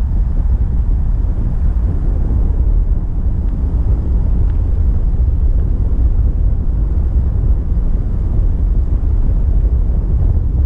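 Steady low rumble of a car driving slowly, heard from inside the cabin: engine and road noise with no distinct events.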